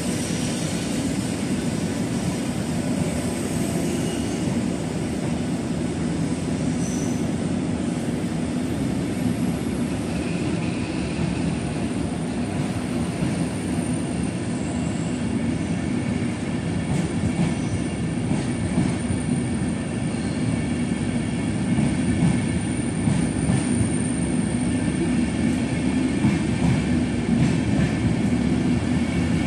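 Deutsche Bahn Intercity passenger coaches rolling slowly along the platform track, a steady rumble of wheels on rail that grows a little louder near the end.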